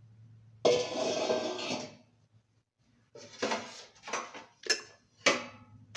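Metal kitchen utensils and dishes clattering: a loud scrape of about a second near the start, then a run of short knocks and clinks.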